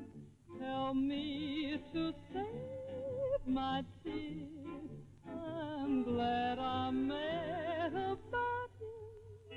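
Music: a slow melody of held notes with strong vibrato and sliding pitch changes.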